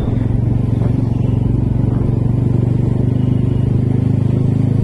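Motorcycle engine running steadily at low speed, a constant low drone.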